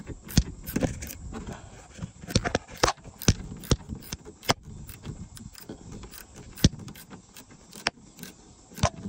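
Irregular sharp clicks and light metallic jingling, more than a dozen spread unevenly, as small tools and fasteners are handled at the car's front wheel well.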